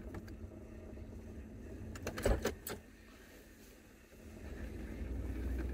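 Low rumble of a running Oldsmobile Cutlass Supreme heard from inside the cabin, with a few knocks a little over two seconds in. The rumble drops away briefly and then swells again near the end.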